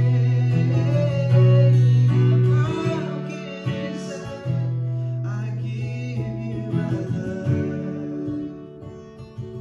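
Acoustic guitar strummed with a man singing a slow worship song, over sustained low notes.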